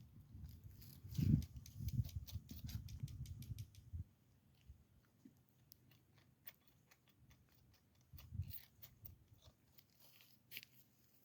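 Baby goats and lambs browsing brush: faint, scattered crisp snaps and clicks of leaves and twigs being bitten off and chewed, over a low rumble that fades after the first few seconds.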